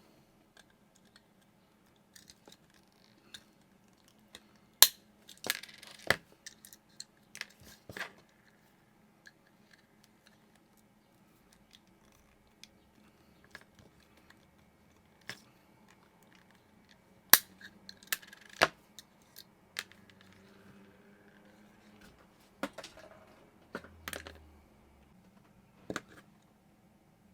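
Small hand tools and a diecast toy car being handled on a work surface: scattered sharp clicks and knocks, the loudest about five seconds in and again about seventeen seconds in, with lighter taps between.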